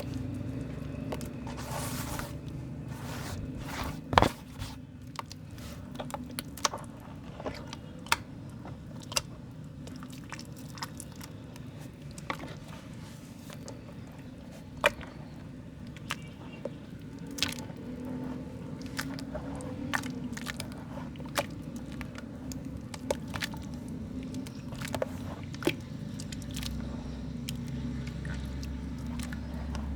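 Soft mud being crumbled and broken apart by hand, with irregular crisp crackles and snaps.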